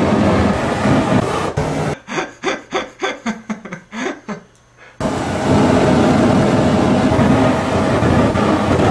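Loud rushing roar of a lit fart burning as a jet of flame, broken about two seconds in by a run of about eight quick sputtering pulses that die away before the roar cuts back in.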